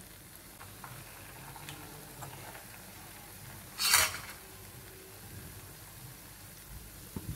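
Jalebi batter frying in hot oil in a pan, a faint steady sizzle. About four seconds in comes one short, loud hiss, and there are a few light clicks near the end.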